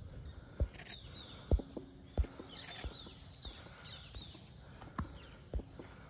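About six dull low thumps at irregular intervals, the loudest two in the first half. Faint high bird chirps sound in the background around the middle.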